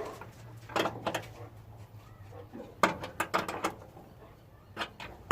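Scattered light clicks and knocks of hand tools and parts being handled: a few about a second in, a quick cluster around three seconds, and a couple more near the end.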